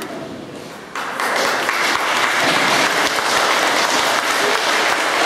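An audience in a hall applauding, the clapping starting suddenly about a second in and continuing steadily.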